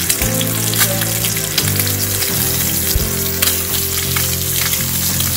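Trout fillet frying in hot oil in a cast-iron pan: a steady sizzle with fine crackling, over background music with low sustained notes.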